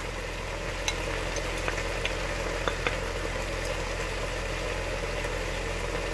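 Frozen mixed vegetables sizzling steadily in hot oil in a frying pan, with a few light clicks in the first half.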